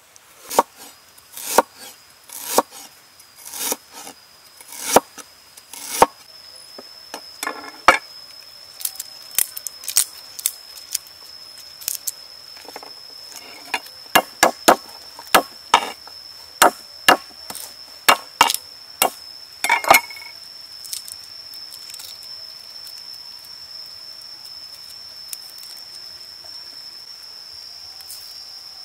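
A cleaver knocking on a wooden cutting board as ginger and garlic are cut, with sharp single strikes at first and then quicker runs of strikes; the chopping stops about two-thirds of the way through. A steady high-pitched insect drone runs underneath.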